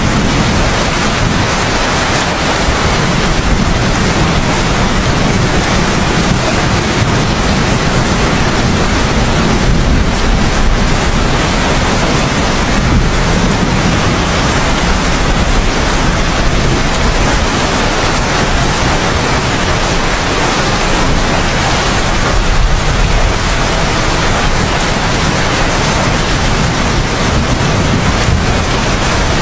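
Heavy rain falling steadily: a dense, even hiss with a deep low rumble underneath.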